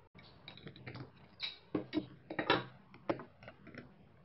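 Metal hand tools clicking and clinking: locking pliers and a wrench handled at the steel nut and threaded rod of a wooden vise, a quick irregular string of clicks and knocks, loudest about two and a half seconds in.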